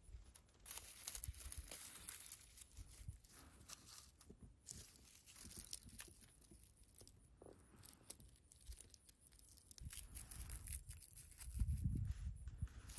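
Faint crackling and tearing as small rooted plants are pulled by hand from soil covered in dry straw mulch, with the dry stems rustling. A low rumble comes in near the end.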